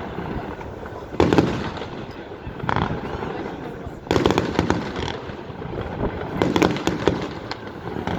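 Aerial fireworks shells bursting: a string of booms one to two seconds apart, several close together near the end, over a steady crackle.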